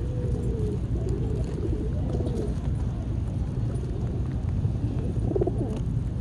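Pigeons cooing: a run of low, wavering coos in the first few seconds and another near the end, over a steady low rumble.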